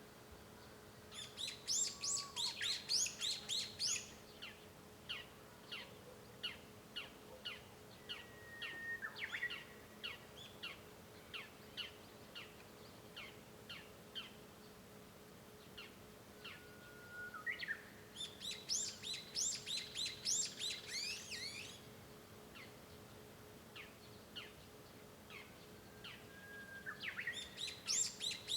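Japanese bush warbler singing three times, each song a held whistle followed by a quick run of high notes, with a series of short, evenly spaced chirps between the songs. A faint steady hum runs underneath.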